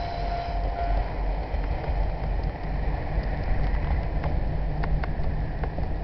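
Low rumble of a train running away from a level crossing, mixed with strong wind buffeting the microphone, and a few light clicks in the second half. A high steady squeal and a pulsing tone carried over from the passing train and the crossing alarm stop about a second in.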